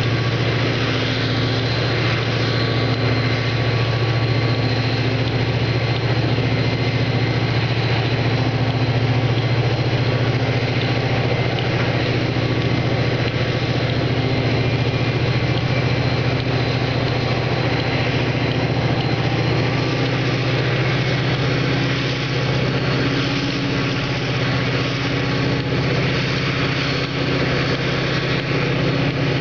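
Diesel-electric freight locomotives running at low throttle, a steady deep engine drone, as the train moves slowly.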